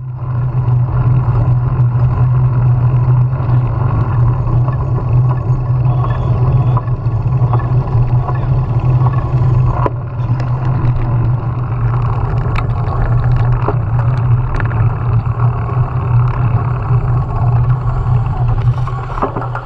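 Steady low wind rumble and road noise on a bicycle-mounted action camera's microphone while riding, with a few sharp clicks.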